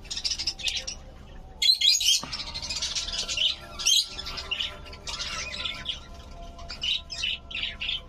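A flock of budgerigars chattering continuously, with many quick high chirps and squawks.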